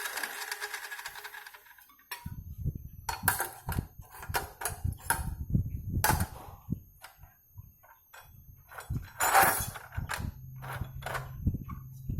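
A mini cut-off saw's motor winding down and fading out over about two seconds after being switched off. Then a string of irregular knocks and clatters, with a low hum coming in near the end.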